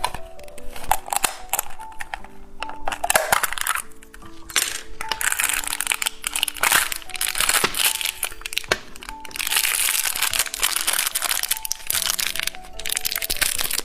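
Plastic packaging crinkling and crackling in repeated stretches as it is handled and opened, over background music with a simple melody.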